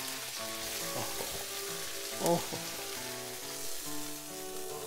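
Bluegill fillets sizzling in hot olive oil in an electric skillet as they are lifted out with a spatula, with a steady hiss of frying. Background music with a simple melody plays alongside.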